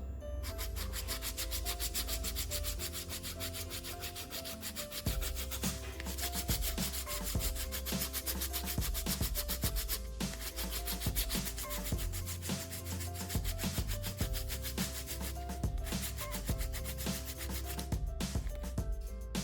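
Sandpaper rubbed back and forth over plastic in quick, even strokes, smoothing a welded repair on an eyeglass frame.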